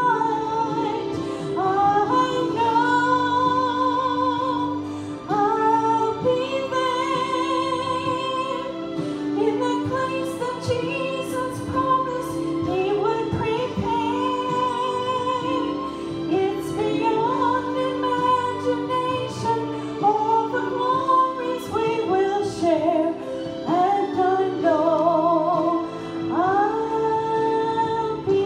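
A woman singing a gospel song solo into a microphone over sustained instrumental accompaniment, holding long notes with a wide vibrato.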